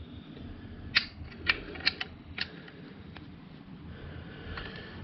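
Sharp metallic clicks and clacks of a narrow crown staple gun's front jam-access latch being worked open and shut, about five quick ones in the first half and a couple of fainter ones later. The latch is stiff.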